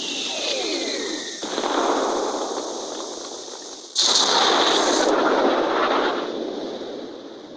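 Artillery fire: a falling whistle ends about a second and a half in as a shell blast goes off, followed by a second, louder blast about four seconds in. Each blast trails off in a long rolling rumble.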